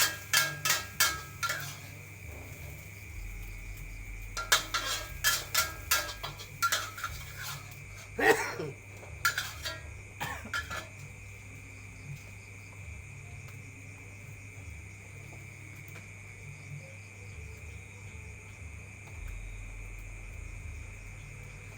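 Metal spatula clanking against a wok in runs of quick strokes, with one louder strike midway; the strokes stop about halfway through.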